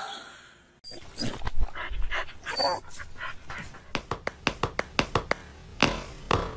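A dog making a run of short, sharp sounds that come about three a second past the middle, with a few louder thumps near the end.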